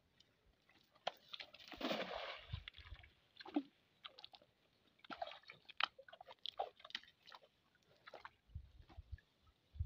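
A cast net landing on shallow water, a brief splashing rush about a second and a half in, followed by scattered short squelches and clicks in wet mud.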